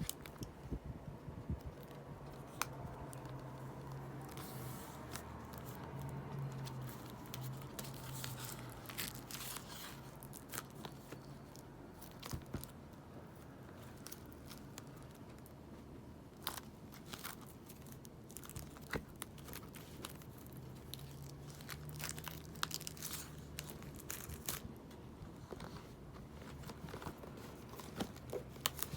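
Album packaging being unwrapped by hand: plastic wrap tearing and crinkling, with scattered small clicks and taps as the pieces are handled.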